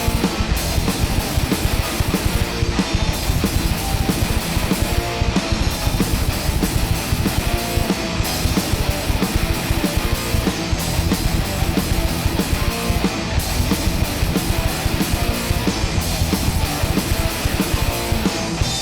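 Loud heavy rock/punk band music: distorted electric guitars over a busy drum kit, with a phrase that repeats about every two and a half seconds.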